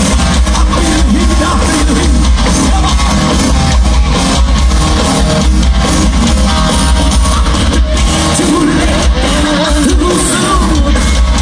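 Live glam-metal band playing loud on stage: electric guitars, drums and a sung lead vocal over heavy, boomy bass, heard from within the crowd.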